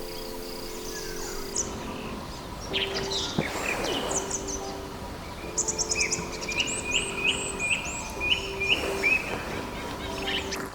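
Small birds chirping and singing, with a quick run of repeated rising notes in the middle, over soft background music of held notes.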